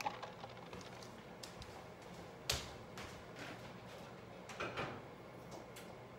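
A few faint knocks and clicks across a quiet kitchen as a saucepan of eggs in water is set on the stove, the sharpest about two and a half seconds in.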